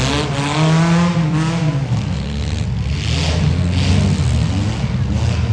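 Several small car engines running and revving, their pitch rising and falling, mostly in the first two seconds, over a steady low drone.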